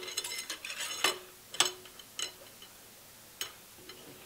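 Steel parts of a milling machine's power drawbar clinking and knocking together as it is fitted back onto the spindle top: a handful of sharp metallic clinks, some ringing briefly, with the biggest about a second and a half in.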